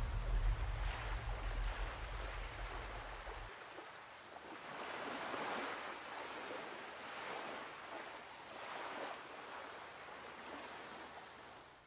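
Ocean waves washing, swelling and ebbing every couple of seconds. A low bass tone cuts off about three and a half seconds in.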